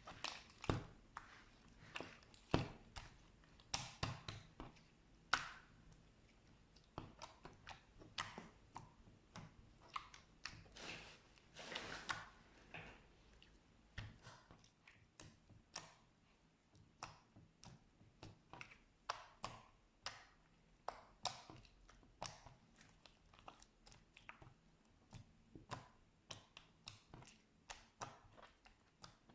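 Slime being squished and pressed by hand: a string of short, irregular clicks and pops, with a longer squelch about eleven seconds in.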